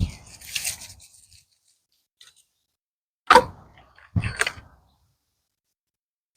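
Dry fallen pecan branches being broken and handled: a few separate sharp cracks and rustles, the loudest about three seconds in.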